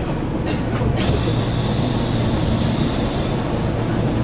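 A Keihan electric train stands at a platform with a steady low hum. About a second in, a sudden hiss of compressed air starts and fades away over about two seconds.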